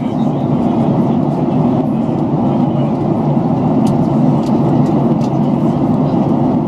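Steady cabin noise of a jet airliner in flight: jet engine and airflow noise, a dense, even rumble, with a few faint ticks about four to five seconds in.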